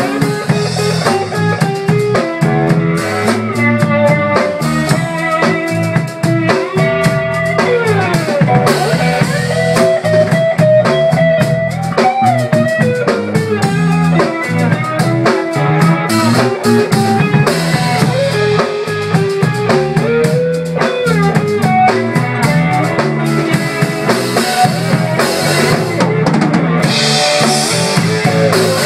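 Live rock band playing an instrumental passage: electric guitar playing a lead line with bent notes over electric bass and a drum kit with rimshots and bass drum. Cymbals grow louder near the end.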